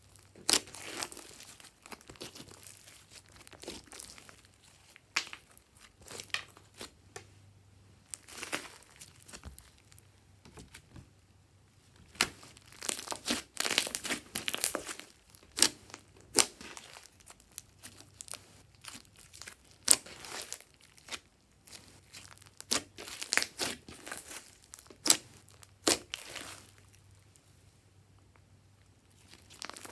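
Glossy slime being squeezed, stretched and folded by hand, giving off irregular sticky clicks, pops and crackles in clusters, with short quiet pauses between handfuls.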